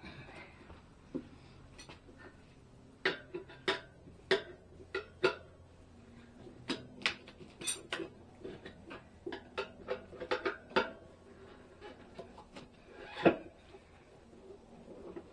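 Metal tire spoons clinking and scraping against a motorcycle wheel rim while levering a new tire's bead onto it: a string of irregular sharp clinks, the loudest a little before the end.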